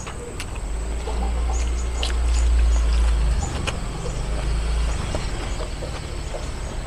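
Mouth sounds of eating by hand: small wet clicks and smacks while chewing. A low rumble runs underneath and swells in the middle.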